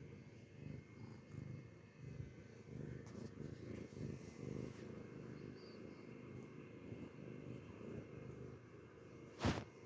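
A domestic cat purring steadily, a low pulsing rumble, with one sharp click near the end.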